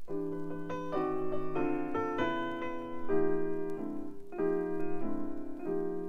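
Jazz keyboard music from a vinyl record: a keyboard plays a run of held chords over a bass line, the chord changing about every half second to a second.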